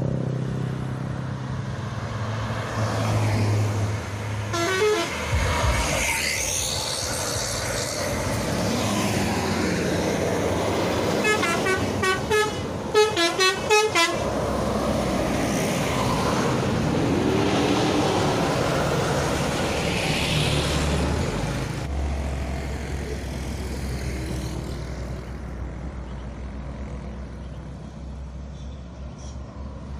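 Bus telolet horns, the rapid multi-note musical horns of Indonesian buses, sounding in a short burst about five seconds in and a longer run near the middle, over running bus engines and passing traffic.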